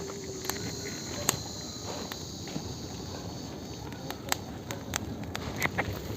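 Wood fire burning, with irregular sharp crackles and pops over a low steady rush, the pops coming more often in the second half.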